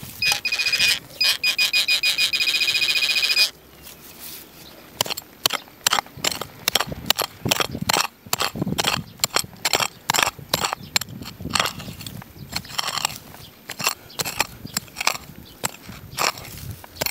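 Metal detector giving a high, rapidly pulsing beep for about three seconds, signalling metal in the ground, which stops abruptly. Then dry grass stems and soil crackle and snap irregularly as the spot is searched by hand.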